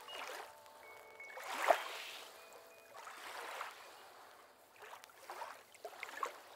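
Gentle water ambience, lapping in slow swells, with one louder splash about a second and a half in and a few faint held tones.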